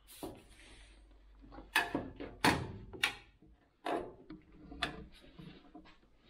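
Several sharp clicks and taps with quiet scraping in between, from a razor knife being worked into a dried-out, decades-old rubber window seal to cut it through around the glass.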